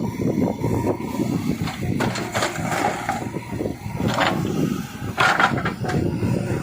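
Heavy diesel machinery engine running steadily under load, with brief bursts of higher-pitched hissing or scraping noise about two, four and five seconds in.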